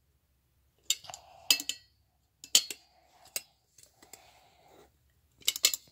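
Sharp clicks and clacks from a fire alarm pull station's cover and latch as it is handled and pushed to lock shut: several separate clicks, some in quick clusters, with faint scraping between.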